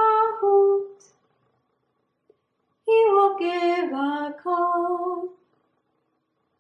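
A woman singing unaccompanied: the end of one short phrase of a children's echo song, a pause of about two seconds left for listeners to sing it back, then a second short phrase.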